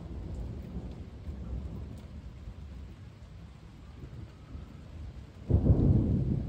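Thunder rumbling low, then a sudden louder clap of thunder about five and a half seconds in.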